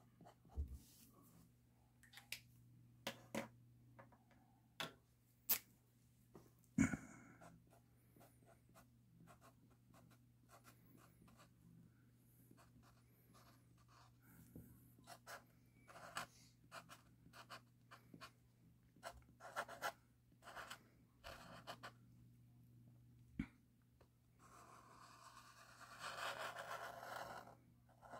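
A drawing tool scratching on paper as a small cartoon is sketched: scattered short strokes and a few sharp taps, then a longer stretch of continuous scribbling near the end.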